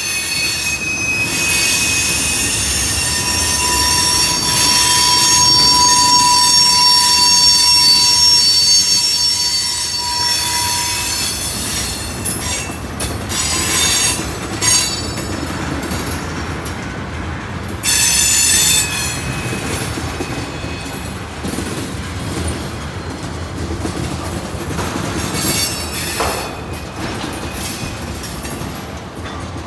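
Tank cars of a Norfolk Southern freight train rolling past, their wheels squealing in several high steady tones through the first half. In the second half the squeal fades and the wheels click and knock over the rail joints.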